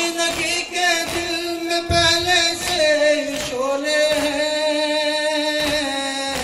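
Men's voices singing a noha (Shia lament) through microphones, holding a long drawn-out note that dips slightly about halfway through. Under it runs a steady beat of hand slaps on the chest (matam), about one every two-thirds of a second.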